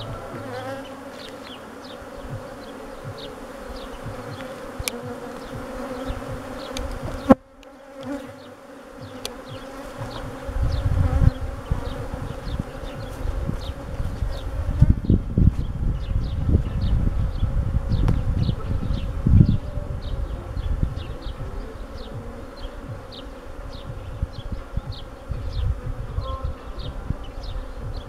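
Honeybee colony humming steadily around an open hive, with single bees buzzing close past. There is a sharp click about seven seconds in, and a low rumble from about ten seconds in that fades out again a little before twenty.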